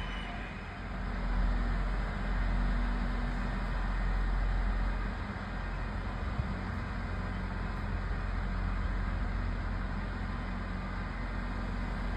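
KiYa E193 East i-D diesel track-inspection train running, a steady engine drone with a strong low hum that swells about a second in. A single short click about six seconds in.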